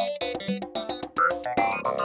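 Background music: a quick run of short, evenly paced notes on a keyboard-like instrument, the texture growing fuller about one and a half seconds in.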